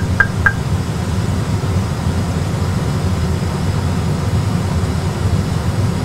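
Three short high pips in the first half second, the end of the Airbus A320 autopilot-disconnect warning, then the steady low rumble of engine and air noise in the cockpit.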